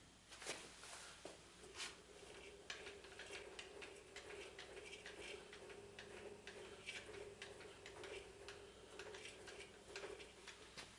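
Near silence: faint room tone with a steady low hum and scattered light ticks and clicks.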